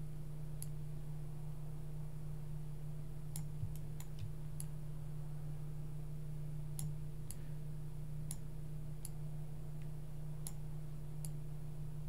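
Computer mouse clicking: about ten short, sharp clicks at uneven intervals, over a steady low electrical hum.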